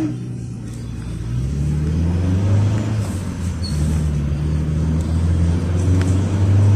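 Minibus Evotech four-cylinder petrol engine pulling away and accelerating, heard from inside the cabin; the low drone grows louder about a second and a half in.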